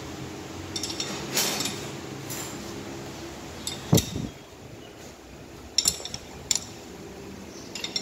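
Steel hand tools and parts clinking and clanking against a John Deere 5045 4x4 front axle as it is worked on with wrenches. There are scattered short metallic knocks, the loudest a sharp clank about halfway through with a brief ring.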